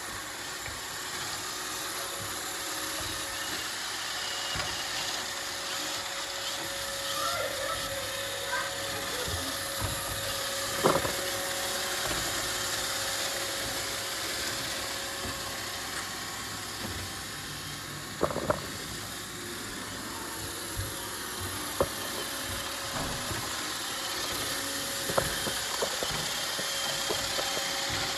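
Roomba robot vacuum running: a steady motor whir with a faint held tone, broken by a few sharp knocks and clicks.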